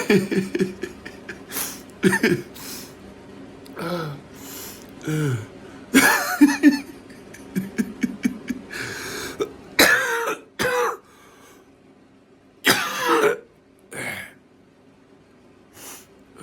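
A person coughing over and over, in bursts of one to a few coughs with short voiced breaths between them; the coughs come thick for about ten seconds, then thin out to a few single coughs with pauses between.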